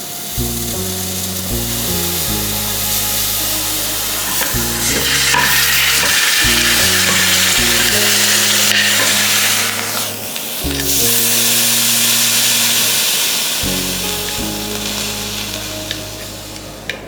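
Red-hot iron ball sizzling against ice, the hiss strongest from about five seconds in, dropping away briefly around ten seconds and then coming back. Background music with a low bass line plays underneath.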